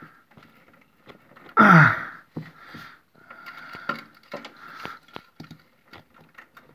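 Small plastic clicks and knocks as hands work a refrigerator's plastic PTC start relay off the compressor's terminal prongs, with a short grunt with falling pitch about one and a half seconds in. A faint steady high whine runs underneath.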